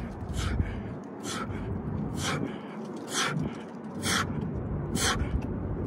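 A man breathing hard through push-up reps, with a short, sharp exhale about once a second, six in all, close to the microphone.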